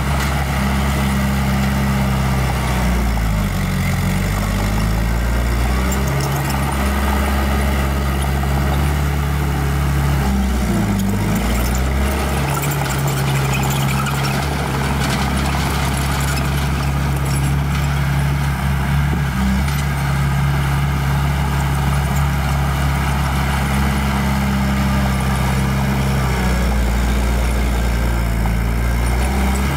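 Diesel engine of heavy earthmoving machinery running steadily, its pitch dipping and picking back up twice, about three and eleven seconds in.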